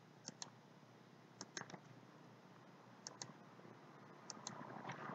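Faint computer mouse clicks, mostly in quick pairs, about four times, placing cut points with Blender's knife tool.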